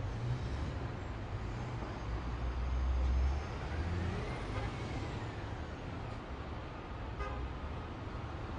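Steady low vehicle rumble, with a faint tone that rises and then falls in pitch in the middle and a short horn-like toot about seven seconds in.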